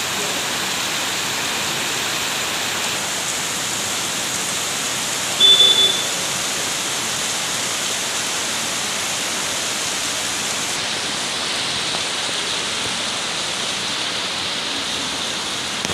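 Heavy rain pouring steadily, an even hiss. A brief, louder tone cuts through it once, about five and a half seconds in.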